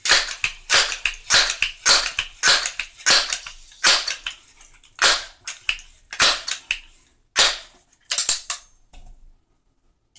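Crosman 1322 multi-pump pneumatic air pistol being pumped by its forearm lever: about ten pump strokes, each a short sharp sound, coming more slowly toward the end as the charge builds. It is being charged with 10 pumps for a shot.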